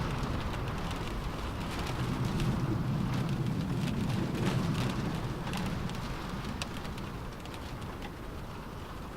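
Rain falling on a car roof, with scattered single drops ticking sharply on top of the steady wash, over a low rumble that swells and eases. The whole sound softens a little about six seconds in.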